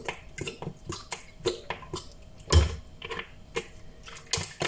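Light clicks and knocks of a bottle being handled as a dark sauce is poured into a bowl of milky marinade, with one louder thump about two and a half seconds in.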